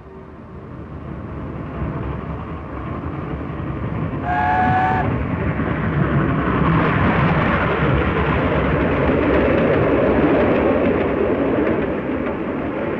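Streamlined LNER A4 steam locomotive and its express coaches passing at speed. The rumble builds as the train approaches, and a short chime whistle of several notes at once sounds about four seconds in. Then the loud run of the engine and coaches over the rails follows, easing a little near the end.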